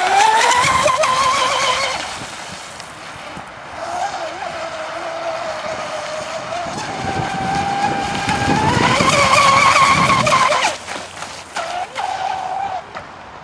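RC catamaran speedboat's motor whining at speed as it skims across the water, the pitch climbing in the first second, settling lower in the middle, then rising again about eight seconds in before falling away near eleven seconds. A rushing hiss of spray and hull on water runs along with it.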